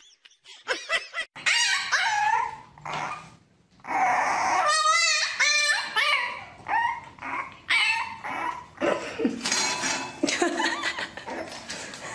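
Puppies whining and yipping: a string of short, high-pitched, wavering cries with brief pauses between them.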